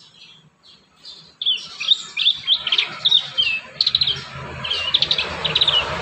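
A prinia (prenjak) singing a quick series of sharp chirps and short trills, starting about a second and a half in. Toward the end a steady rushing noise builds up underneath.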